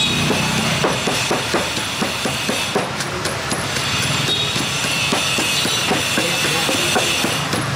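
Wooden pestle pounding papaya salad in a large clay mortar, rhythmic dull knocks about three a second as the shredded papaya and dressing are bruised together.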